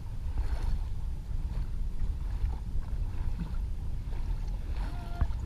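Wind buffeting the microphone over the steady rush of water along the hull of a small sailboat under way.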